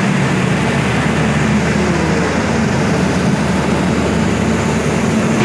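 Heavy machinery running inside the Kapal Keruk Bangka 2 tin-mining dredge: a loud, steady mechanical din with a low hum underneath.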